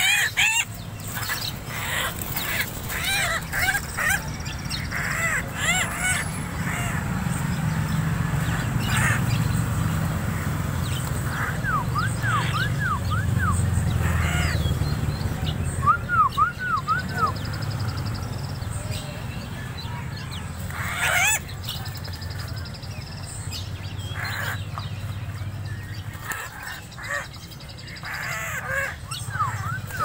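Koak kaok (friarbird) calling: harsh, crow-like calls and several quick runs of short arched notes, over a steady low hum.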